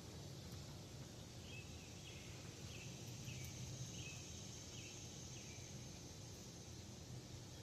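Quiet outdoor ambience: a bird gives a short chirp about seven times in a row, roughly one every half second, over a steady high insect-like hiss and a low background rumble.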